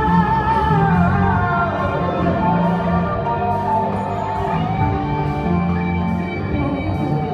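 Pop song with an orchestral arrangement: a held sung note with vibrato slides down and ends about two seconds in, and the band and orchestra carry on.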